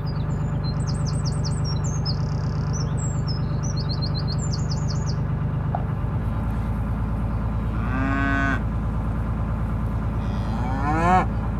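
Cattle mooing twice over the steady low hum of a narrowboat's engine. The first call, about eight seconds in, is short and level; the second, near the end, rises in pitch and is louder. Small birds chirp during the first few seconds.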